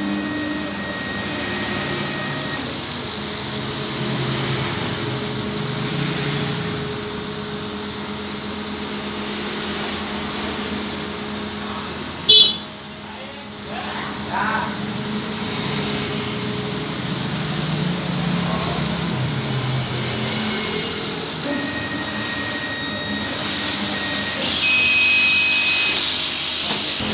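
CO2 laser cutting machine running with a steady hum while its head traces a long straight test line, a check of the Y-axis travel. A sharp click about halfway through.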